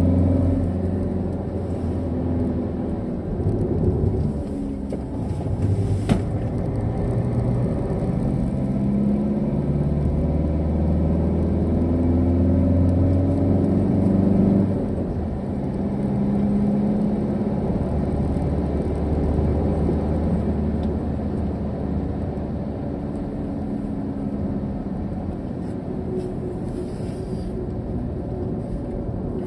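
Car engine and tyre rumble heard from inside the cabin while driving. The engine note rises and falls with the throttle and drops sharply about fifteen seconds in. There is one sharp click about six seconds in.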